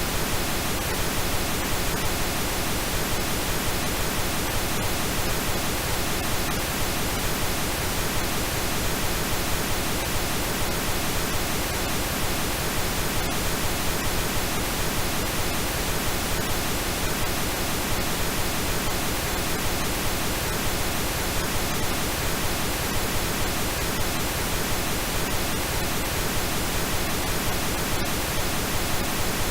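Steady synthetic pink noise: an even, full-range hiss that does not change.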